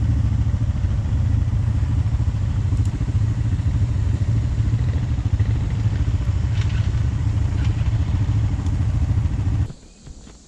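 Honda four-wheeler (ATV) engine running, a steady low drone with a few faint clicks over it; it cuts off suddenly near the end.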